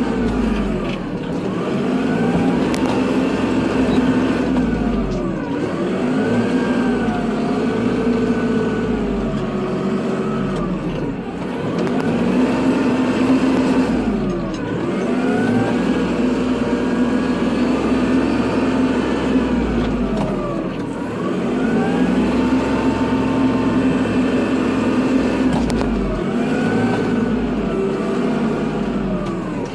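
Kubota tractor's diesel engine running while plowing snow, its pitch dipping and climbing back every five or six seconds as the load changes.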